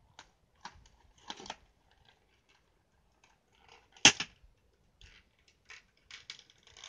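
Clear plastic toy packaging crinkling and crackling as it is handled and pulled open: scattered clicks and rustles, and one sharp, loud crackle about four seconds in.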